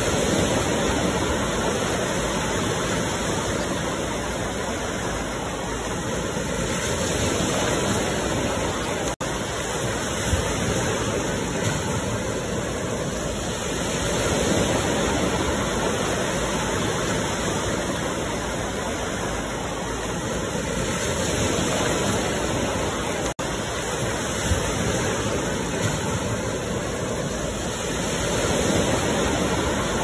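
Ocean surf washing on the shore as a continuous rush of water that swells and eases about every seven seconds as waves come in. The sound cuts out for an instant twice.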